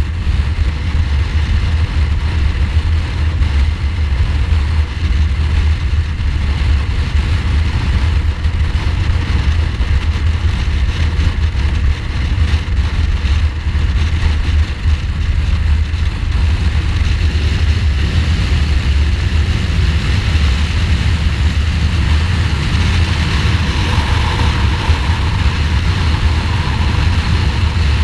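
2015 Ducati Multistrada's V-twin engine running at a steady cruise, heard from on the bike, with a constant low rumble of wind on the microphone.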